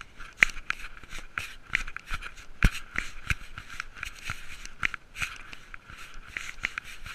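Irregular clicks, knocks and scrapes from a cat-mounted GoPro as the cat moves over weathered wooden planks, with one sharp knock about two and a half seconds in.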